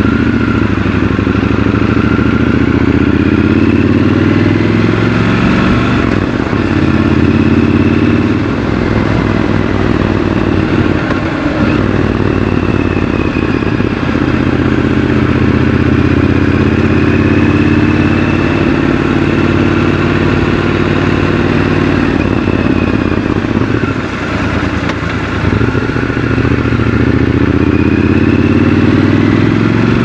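Triumph Scrambler 1200 XC's 1200 cc parallel-twin engine under way, heard from the rider's seat. Its pitch climbs and drops back several times as the bike accelerates, shifts and eases off, and it briefly quietens about two thirds of the way through.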